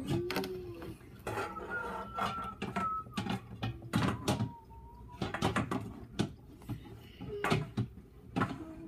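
Irregular knocks and clicks of rocks and tank decor being handled against a glass aquarium, with two short squeaky tones in the middle.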